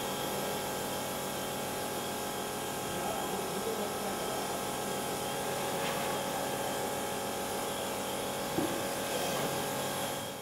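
Oleo-Mac electric high-pressure washer running steadily: a constant motor hum under the hiss of the water jet spraying a vehicle.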